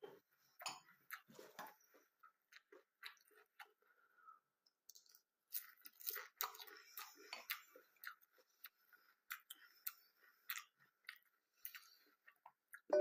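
Cornflakes being chewed: irregular crisp crunches throughout, with a denser run of chewing about halfway through.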